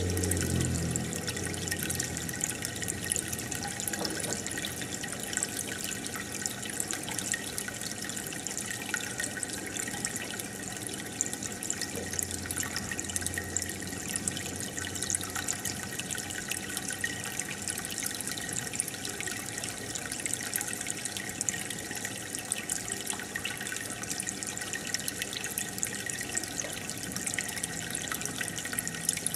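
Aquarium water bubbling and trickling steadily, from a stream of air bubbles rising through the tank, with a fine crackle of small bubbles.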